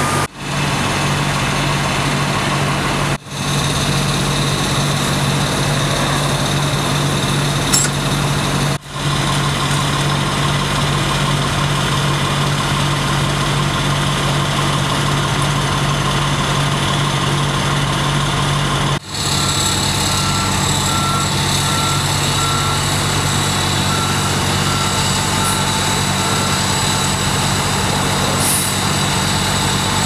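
Fire engine's diesel engine idling steadily, with a row of short, evenly spaced beeps in the second half.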